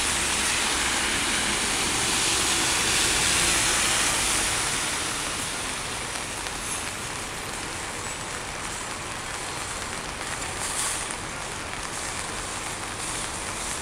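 Wet city street in steady rain: an even hiss of rain and tyres on wet road, with a passing vehicle's low rumble making it louder for the first four seconds or so before it settles.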